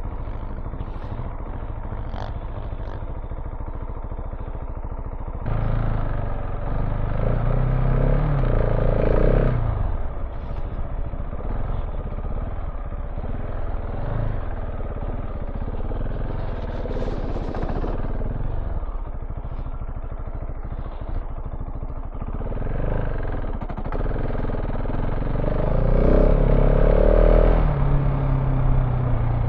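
KTM 690 Enduro R's single-cylinder engine being ridden off-road, opening up and easing off as the rider works the throttle. It rises in pitch and loudness twice, about six seconds in and again near the end.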